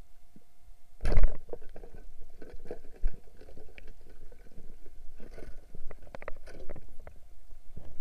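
Muffled underwater sound picked up by a submerged camera: a loud low thump about a second in, a sharper knock about two seconds later, and scattered clicks, crackles and short bubbly rushes.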